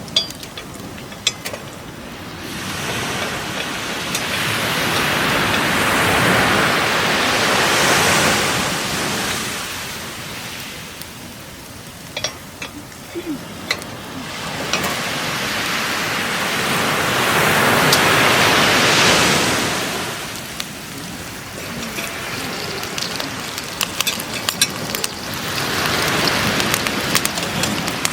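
Sharp crackles and pops, typical of a campfire, over a rushing noise that swells and fades three times, about ten seconds apart.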